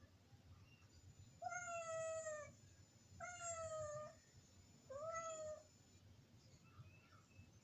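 Calico domestic cat meowing three times, drawn-out calls about a second long with the last one shorter, asking to have the door opened and be let in.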